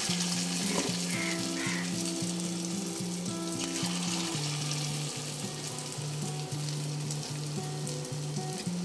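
Lumps of ground arhar dal batter sizzling steadily as they deep-fry in hot oil in a kadhai.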